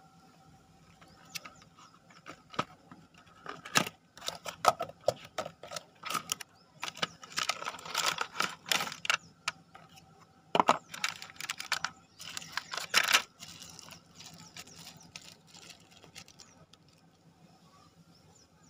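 A cardboard box and its plastic wrapping being opened and handled by hand: a dense run of crinkling, rustling and clicking packaging from about four seconds in to about thirteen, then softer rustling of a plastic bag.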